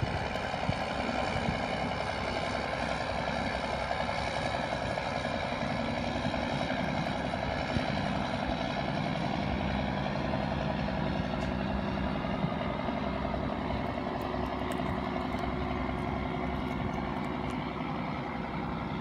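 Fishing boat's engine running steadily as the boat motors out of the harbour, a continuous drone that grows a little fainter near the end as it pulls away.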